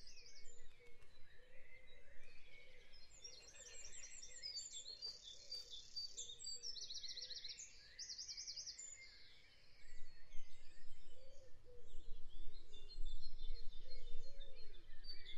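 Birds chirping in the background: rapid high trills and chirps, with softer, lower calls repeating.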